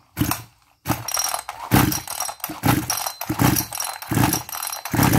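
Small two-stroke grass-trimmer engine being pull-started: several quick, uneven yanks on the recoil starter cord, each with a rattling, ratcheting burst as the engine turns over. It is a test start after the ignition module was moved to fire about 30 degrees earlier.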